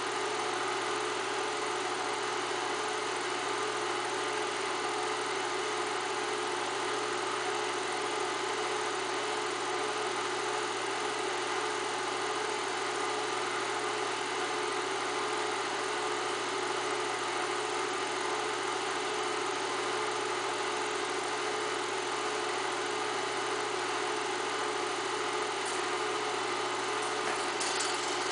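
8mm film projector running: a steady mechanical whir and hum from its motor and film transport, with a few sharp clicks near the end.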